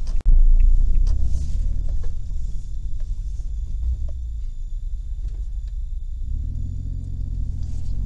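Moving car heard from inside the cabin: a low engine and road rumble, loudest in the first second or two. About six seconds in, a steadier engine hum comes in.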